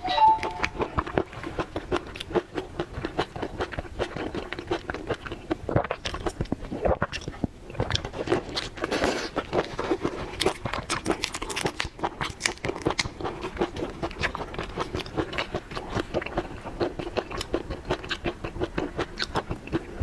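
Close-miked eating sounds: a person biting and chewing seafood, with a dense run of short crunchy clicks throughout.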